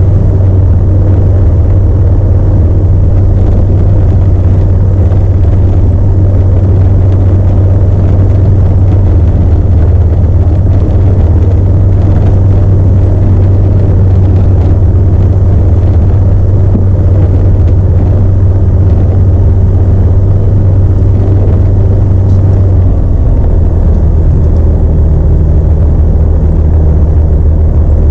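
Alpi Pioneer 300's Rotax flat-four engine and propeller idling steadily just after a choke start, heard from inside the cockpit. The engine note drops slightly about three-quarters of the way through and holds there.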